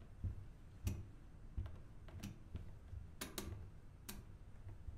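Irregular sharp clicks and taps, about seven over a few seconds, over a faint low hum.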